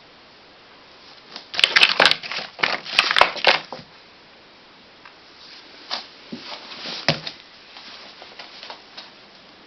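Packaging being handled: bursts of crinkling and clicking, the busiest a couple of seconds in, then a few scattered clicks and rustles.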